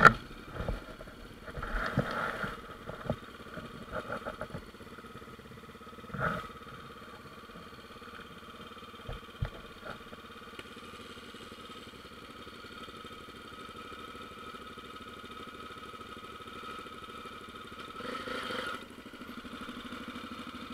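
Single-cylinder Honda trail motorcycle engine idling steadily, with a few scattered knocks and clatters.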